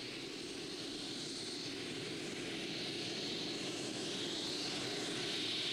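Turbine-powered pulling tractor running on four Russian Isotov gas-turbine engines: a steady jet-like rush with a high whine, growing slowly louder as it sets off on its pull.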